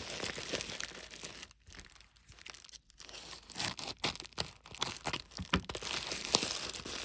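Packaging crinkling and tearing as a parcel is pulled open by hand: irregular crackles and rustles, quieter for a moment early on and busier in the second half.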